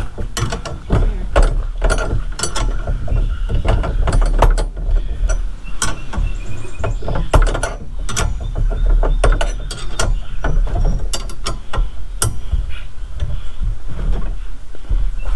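Metal hand tools and bolt hardware clicking and clanking in quick, irregular strokes while a wheel hoe's handle brackets are bolted on.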